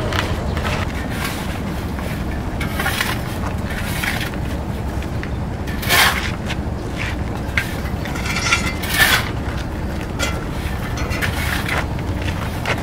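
A steel two-wheeled block cart being pushed over gritty ground, giving a string of short scrapes and knocks over a steady low rumble. The sharpest scrapes come about six and nine seconds in.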